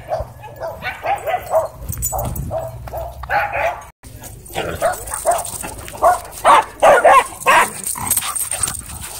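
Several dogs barking and yipping repeatedly as they play, with a run of short, sharp barks that is loudest a little past the middle.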